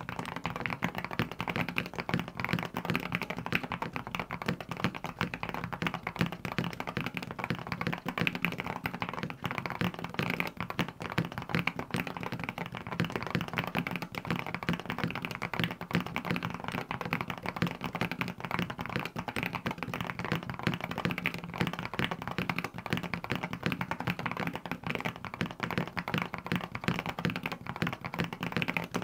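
Continuous fast typing on a compact mechanical keyboard: a dense, unbroken stream of keystrokes with no pauses.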